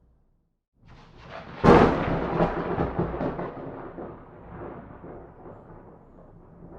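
A thunderclap. After a second of silence a low rumble builds, then a sharp crack breaks about two seconds in, followed by a long rumble that slowly fades.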